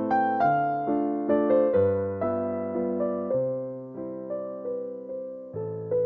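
Slow, gentle piano background music: soft notes and chords that ring and fade, over a low bass note that changes every second or so.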